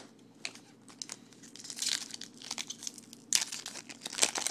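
Crinkling and tearing of a trading card pack's foil wrapper as it is torn open, in a run of crackly rustles that gets busier in the second half.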